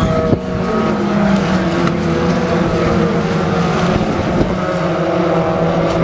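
A pack of BTCC touring cars racing through a corner, several 2-litre turbocharged four-cylinder engines running at once. Their pitches overlap and rise and fall as the cars brake, change gear and accelerate away.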